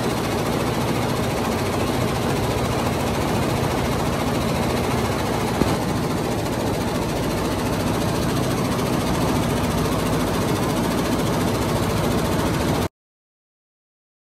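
Multi-head computerised embroidery machine stitching onto velvet: a steady, loud, rapid clatter of needles under a low motor hum. It cuts off suddenly near the end.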